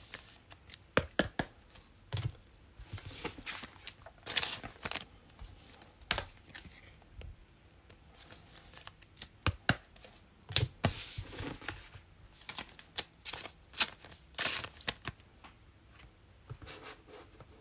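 Trading cards and their packaging being handled: scattered light clicks, taps and brief rustling swishes.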